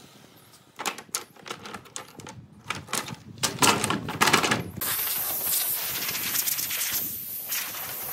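Wooden lattice slats knocking and clattering against each other and the workbench as the interlocked pieces are pulled apart, with quick runs of sharp clicks. About five seconds in, a steady hiss takes over.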